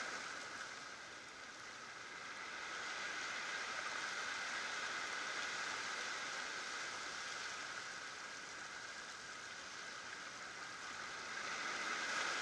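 Small waves washing over shoreline rocks: a steady hiss of surf that slowly swells and eases.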